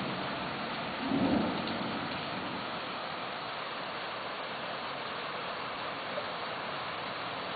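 Steady downpour of rain, with a brief low rumble of thunder swelling about a second in.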